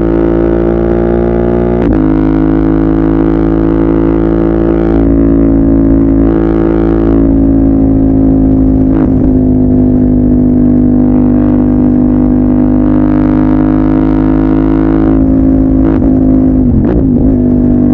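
CFMOTO 800MT parallel-twin engine running through a Yoshimura full-system exhaust, holding fairly steady revs. The pitch breaks briefly about two seconds in, mid-way and near the end.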